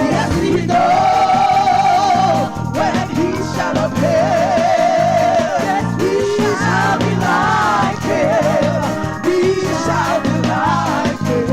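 Live gospel music: a solo singer holds long notes with vibrato and sings wordless runs over keyboard chords and bass.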